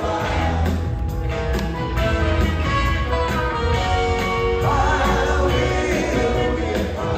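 Live rock band playing an instrumental stretch of a song: electric guitar, drums, upright bass, grand piano and pedal steel, with violin and cello on stage.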